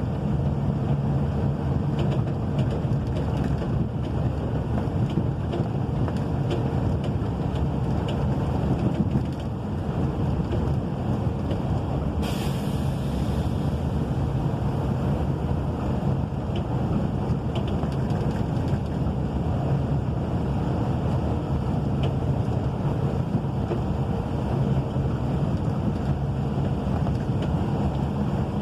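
Wind and rain: a steady low rumble of wind on the microphone with faint scattered ticks of drops, and a brief hiss about twelve seconds in.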